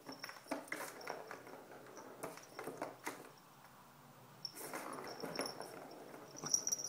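Plastic ball rattling and clicking around a cat's circular track toy as a cat bats it with its paw, in two bouts of quick clicks with a short lull between them.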